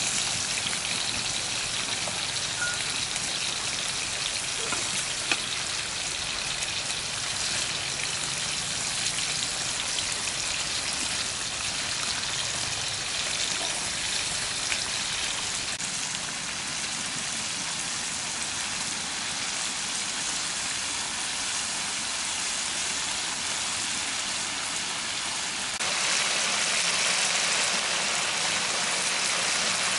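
Whole chicken deep-frying in hot oil in a wok: a steady sizzle of bubbling oil with small pops, growing louder near the end.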